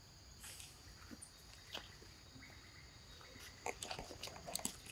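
Steady high-pitched chirring of insects, faint, with a few short clicks and rustles starting about three and a half seconds in.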